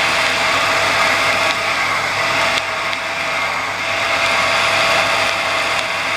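A 32 mm spade drill cutting into a 1045 steel hub on a lathe turning at 280 RPM: a steady, loud hissing, grinding cutting noise with a faint steady tone under it. The noise eases slightly about two and a half seconds in, then builds again.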